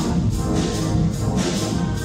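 Municipal wind band playing, brass and woodwind sustaining chords over recurring percussion strokes.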